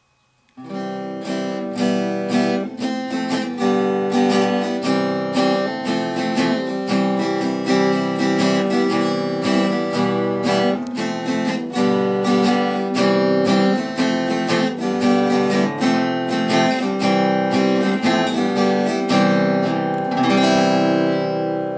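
Acoustic guitar music, plucked and strummed, starting about half a second in. A final chord rings on near the end.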